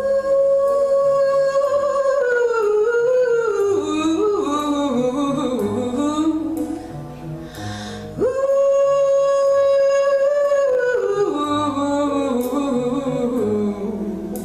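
A female torch singer sings solo into a microphone over soft instrumental backing. Twice she holds a long, steady high note and then slides down through a winding run of lower notes, with a breath in the middle.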